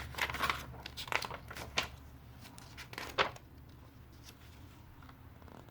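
Pages of a picture book being turned and handled: several short paper rustles over the first three seconds or so, then quiet.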